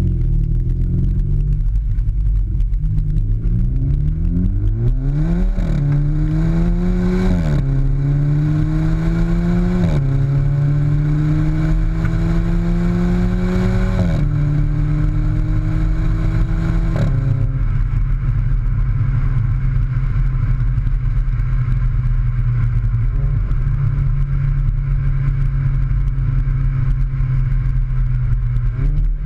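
Skoda Fabia vRS 1.4 TSI engine breathing through a Cobra cat-back exhaust with the centre silencer removed and a Pipercross intake. It accelerates with rising revs, and the DSG gearbox makes four quick upshifts, each with the exhaust's 'fart' on the change. It then settles to steady cruising revs.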